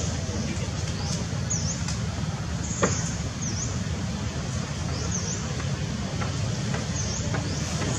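Outdoor ambience: a steady low rumble, with a short high chirp repeating about once a second and a single sharp click about three seconds in.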